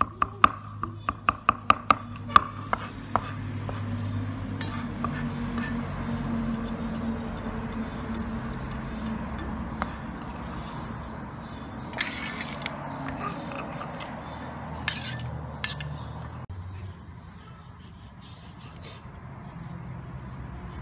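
Meat cleaver chopping garlic and red chilies on a wooden chopping board: a quick run of sharp chops in the first three seconds, then a few short scrapes of the blade on the board over a steady low hum.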